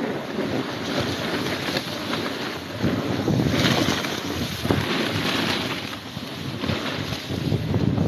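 Wind rushing over the microphone while riding down through soft powder snow, with the hiss and rumble of the board on the snow surging louder a few times.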